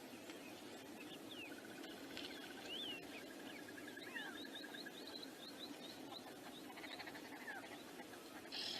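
Several wild birds calling together over a steady low background rush: a fast, even trill, a run of quick rising chirps, and short scattered whistles, with a brief harsher burst near the end.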